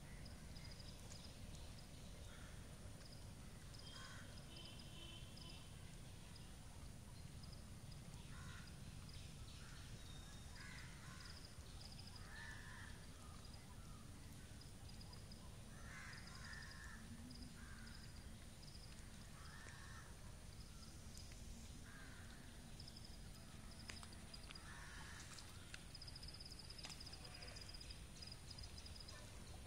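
Faint outdoor background: a steady low rumble with scattered short distant calls every few seconds. The snakes themselves make no audible sound.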